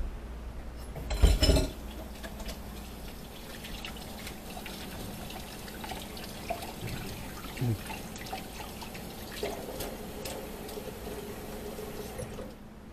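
Water running from a kitchen tap into a sink, starting after a loud clatter about a second in and cutting off near the end.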